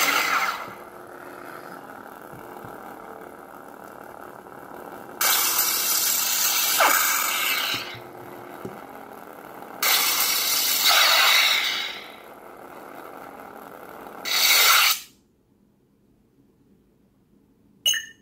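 Lightsaber replica's Crystal Focus V9 soundboard playing through its small built-in speaker: the steady blade hum, broken twice by loud effect sounds of about two seconds each. About fourteen seconds in a short loud retraction sound cuts off to near silence as the blade switches off, and a short beep comes near the end.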